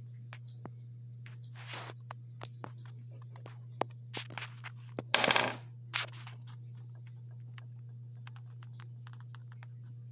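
Scattered light clicks and taps of coins and small metal finds on a wooden tabletop, with a louder short scraping rustle about five seconds in, over a steady low electrical hum.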